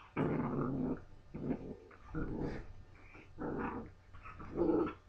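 Two puppies, a Doberman and a blue nose pit bull, growling while they play-fight, in about five short bursts spread across the few seconds.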